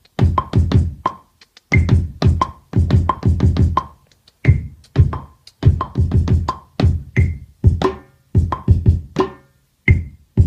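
Drum-kit sounds from Battery 4 triggered on Maschine pads, played as a loose finger-drummed beat: clusters of quick, deep hits with some ringing, pitched strikes, broken by short pauses.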